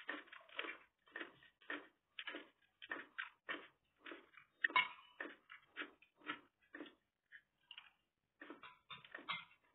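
Close-miked chewing and mouth smacking while eating, in short regular bursts about twice a second, with a pause of a second or so near the end before a last cluster.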